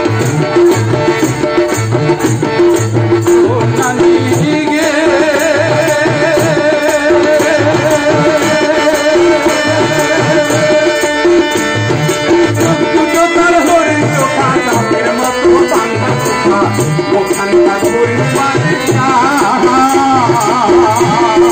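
Live music played loud through a stage PA: a man sings into a microphone with long wavering held notes over a steady hand-drum beat and accompanying instruments.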